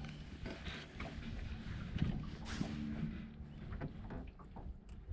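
Fishing reel cranked in short spells while a big pike is played on a bent rod. Wind and water lap against a small boat's hull underneath.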